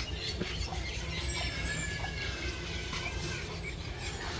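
Birds chirping in short high calls over a steady low rumble of outdoor background noise.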